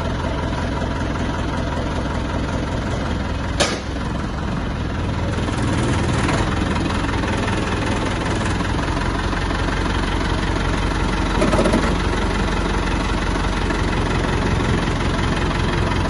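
An engine running steadily, with a single sharp click about three and a half seconds in.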